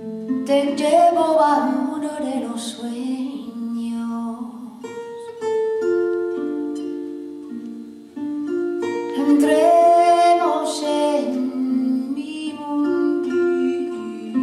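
Live music from a small acoustic band with violin, double bass, guitar, drum kit and keyboard. The melody line swells twice, about half a second in and again around nine seconds, over held chords and a plucked guitar accompaniment.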